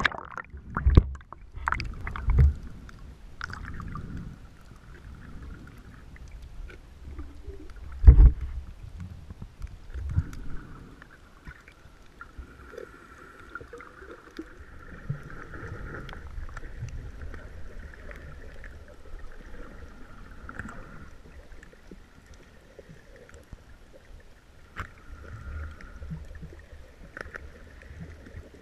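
Muffled underwater sound picked up by a camera held below the surface: a splash-like burst just as it goes under, then dull thumps over the first ten seconds, the loudest about eight seconds in. After that a low, steady water rumble with a faint steady whine above it.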